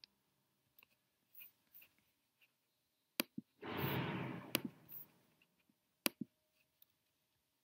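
Faint scattered clicks, with three sharper clicks about three, four and a half and six seconds in, and a rustle lasting about a second and a half in the middle.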